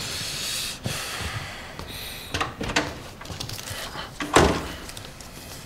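Handling sounds at a film editing table: a rustle, a few sharp clicks, then one loud knock about four seconds in.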